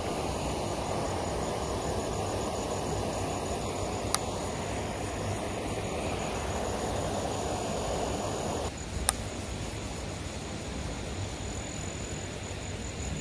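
Steady outdoor rushing noise beside a river, with an insect's high, slightly pulsing trill running through it. There are two short clicks, about four and nine seconds in.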